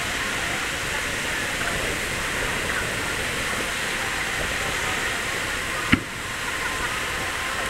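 Steady murmur of a fireworks crowd over a noisy wash, with one sharp bang about six seconds in.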